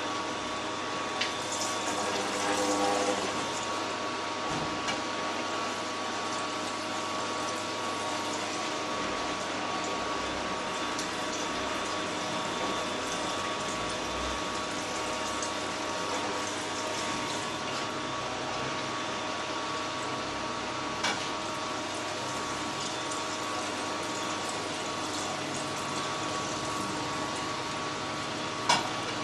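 An Angel stainless-steel twin-gear juicer and an Omega VRT 350 single-auger vertical juicer running at once while they crush oranges: a steady motor hum with a few short sharp clicks, one just before the end.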